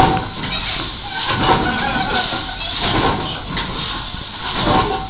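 Steam engine built in 1868 for the paddle steamer Antrim, now driving the slipway winch, running slowly: a steam puff about every second and a half over a steady hiss of escaping steam.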